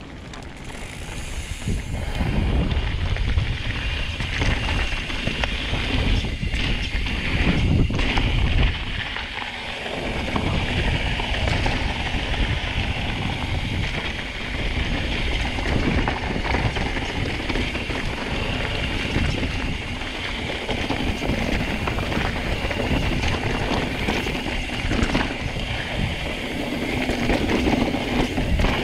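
Mountain bike ridden down a rocky, gravelly singletrack: tyres crunching over loose stones and the bike rattling, with wind buffeting the action camera's microphone. It builds over the first couple of seconds as the bike gets rolling.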